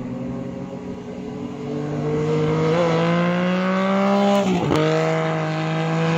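A motorcycle engine accelerating hard, climbing in pitch. About four and a half seconds in it breaks off sharply at a gear change and carries on lower.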